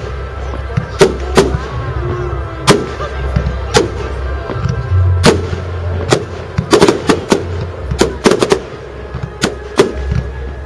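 Aerial firework shells bursting at a fireworks display: a run of sharp bangs at irregular intervals, several coming in quick clusters of two or three.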